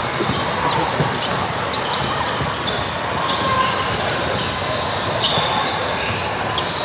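A basketball being dribbled on a hardwood court, with sneaker squeaks and the echoing chatter and noise of a busy hall behind it.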